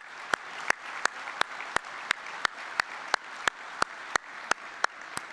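Audience applauding, with loud, sharp claps about three a second from one man clapping close to the podium microphones; his claps stop near the end as the crowd's applause trails off.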